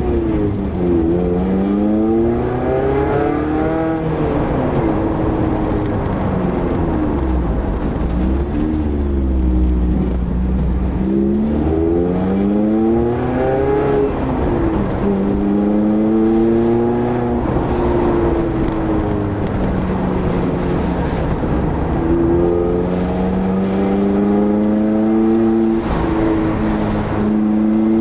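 Mazda MX-5 ND's four-cylinder engine through an Ulter-Sport stainless centre-exit sports exhaust with its bypass valve open, heard at the tailpipes on the move. The note rises and drops again several times as the car pulls through the gears, then holds steadier with slow rises, over a low road rumble.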